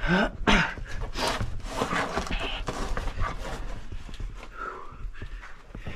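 Irregular footsteps and scrambling through a wet cave stream passage: uneven splashes, knocks and scrapes, several a second.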